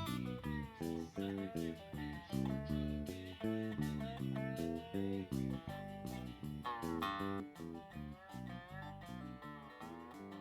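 Background music led by a plucked guitar, quick notes in a steady rhythm, easing off in loudness toward the end.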